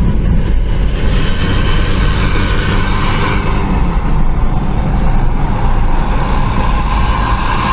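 Loud, steady road noise from a big bus's diesel engine and exhaust running close by, with deep rumble throughout and a higher hum growing louder near the end.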